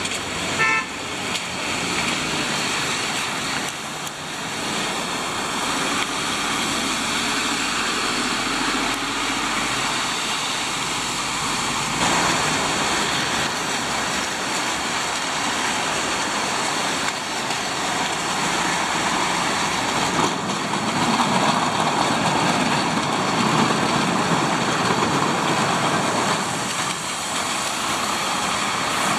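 Street traffic on a wet road: lorries, cars and a bus driving past, engines running and tyres hissing on the wet surface, with the sound swelling as heavier vehicles pass about a third of the way in and again near the end.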